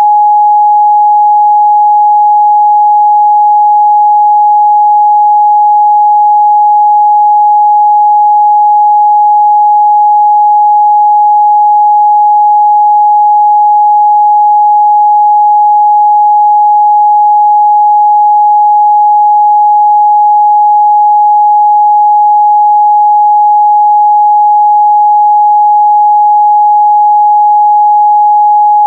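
A pure 836 Hz sine-wave test tone held steady and loud, with no change in pitch or level.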